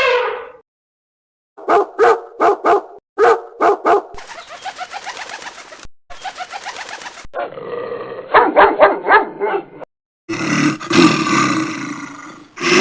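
Animal calls from several short recordings cut together, with brief silences between them. About two seconds in comes a quick run of about seven short, sharp calls, followed by a longer stretch of rough, pulsing calls and two more separate clips of animal calls.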